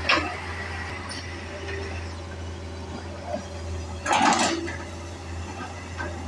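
Hitachi excavator's diesel engine running with a steady low drone, with a short clatter about four seconds in.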